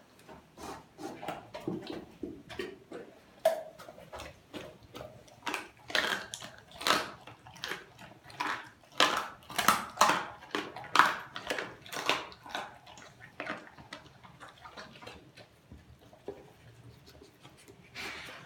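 Doberman eating raw food from a stainless-steel bowl: irregular chomping and crunching bites, with the metal bowl knocking now and then. The bites come thickest and loudest in the middle.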